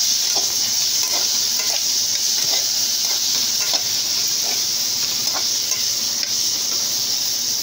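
Chopped vegetables sizzling in hot oil in a kadhai, stirred continuously with a spatula that scrapes and taps against the pan. The sizzle is a steady hiss, with irregular light scrapes through it.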